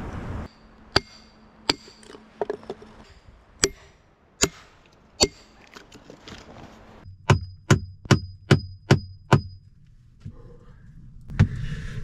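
Hatchet striking wood: a few single blows spaced apart, then a quick run of about seven blows at roughly three a second, each with a high ringing tone.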